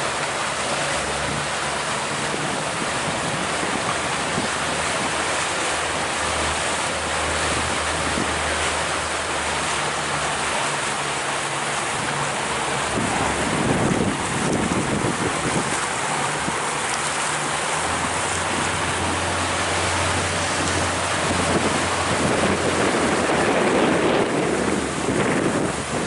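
Small ferry boat under way: a steady rush of wind on the microphone and water along the hull, with the low hum of the boat's motor underneath. Louder gusts of wind come about halfway through and again near the end.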